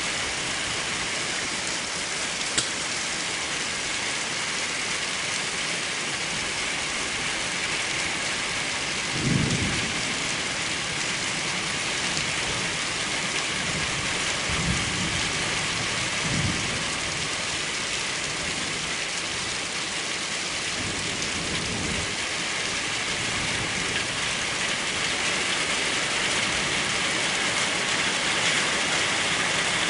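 Steady heavy rain in a thunderstorm, with several low rumbles of thunder, the strongest about nine seconds in. There is a single sharp click about two and a half seconds in.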